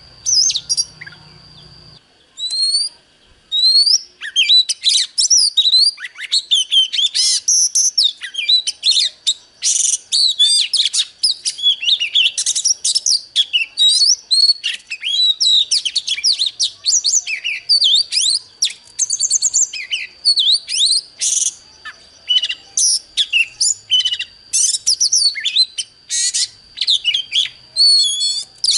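Oriental magpie-robin singing: a long, fast, unbroken run of varied whistles, trills and chirps that starts a few seconds in. A steady high thin tone runs underneath at times.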